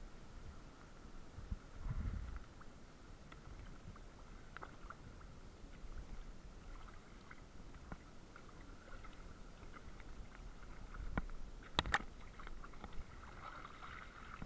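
Faint sloshing and splashing of shallow stream water as a wader in a wetsuit and fins moves through it, with a low thump about two seconds in and a few sharp knocks about three-quarters of the way through.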